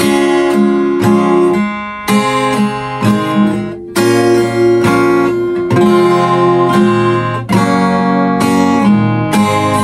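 Fender acoustic guitar with a capo, played solo as the instrumental intro of a Japanese folk song: ringing chords and notes in a steady rhythm.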